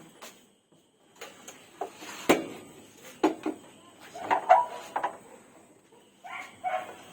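Several sharp knocks and clunks from handling the metal and glass parts of a new gas stove, mixed with a few brief animal calls.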